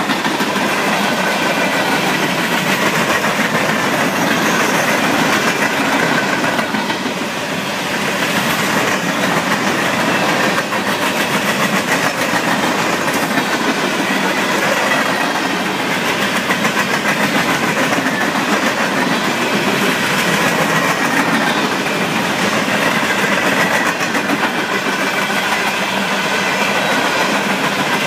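Freight train hopper cars rolling past: a loud, steady noise of steel wheels running on the rails, dipping briefly about seven seconds in.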